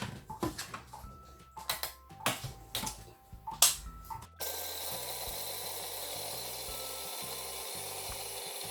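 A few knocks and clicks, then about four seconds in a food processor starts abruptly and runs steadily, chopping a mix of nuts and dried fruit.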